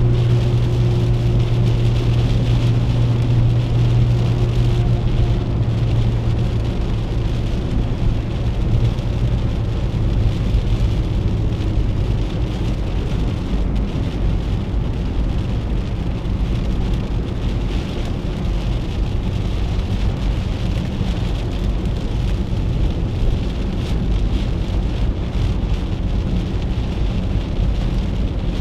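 Inside the cabin of a 1997 Chevrolet Corsa Wind at highway speed: heavy rain hissing on the roof and windscreen and wet-road tyre noise over the steady drone of its 1.0 MPFI four-cylinder engine. The engine drone is strong at first and weakens about a third of the way through.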